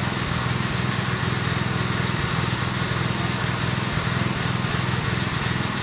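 Small petrol engine of a portable drum concrete mixer running steadily at a constant speed, turning the drum for a batch of sand and cement screed mix.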